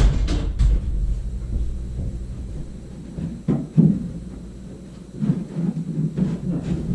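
A wooden board being test-fitted against a ceiling beam: a few sharp knocks, two of them close together a little past the middle, with low bumps and scraping of wood on wood between.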